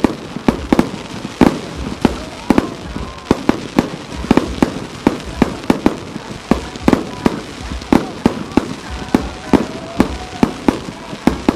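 Fireworks star mine barrage: shells bursting in rapid succession, about three sharp bangs a second, with crackle between them.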